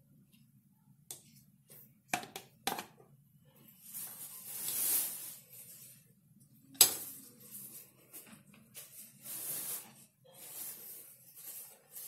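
Knife cutting soft idlis on a stone board: a few sharp clicks as the blade meets the stone, the loudest about seven seconds in, with soft scraping and handling noise between.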